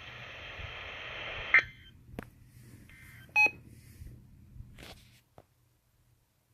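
Static hiss from a NOAA weather radio receiver after the broadcast ends, cut off by a sharp click; then a few faint clicks and one short electronic beep about three and a half seconds in.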